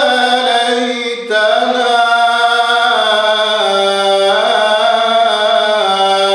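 Solo male Quran recitation in the melodic tajwid style, without added sound effects. The reciter draws out the words in long held notes that glide between pitches, with a short break for breath about a second in.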